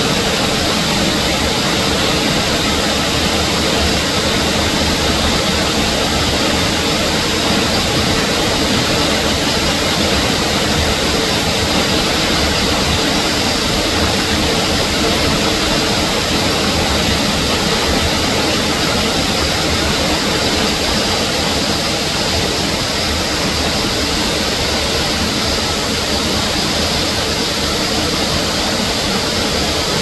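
Steady rushing noise of a waterfall, a loud, even wash of falling water with no breaks.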